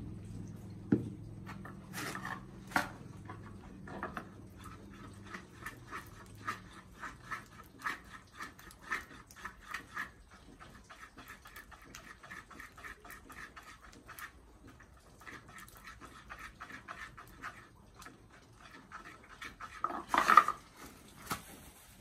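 A wooden stick stirring a mixture in a shallow dish, with quick, uneven clicks and scrapes against the dish. A steady low hum fades out in the first few seconds, and there is a louder clatter about 20 seconds in.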